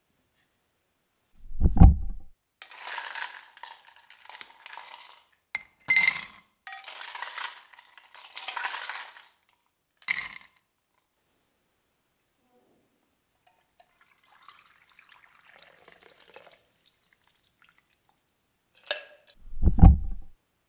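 Drink being built in a rocks glass: a heavy thump, then ice cubes rattling and clinking as a metal scoop tips them into the glass, a faint pour of juice over the ice, and two more thumps near the end, the second of them heavy.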